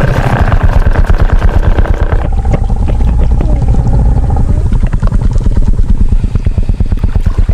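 Sound-designed Tyrannosaurus rex vocalization: a loud, deep, rough rumbling growl with a fast pulsing rattle, changing to a different growl about two seconds in.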